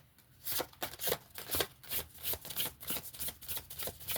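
A deck of oracle cards being shuffled by hand: a quick run of crisp card riffles and slaps, about four a second, starting about half a second in.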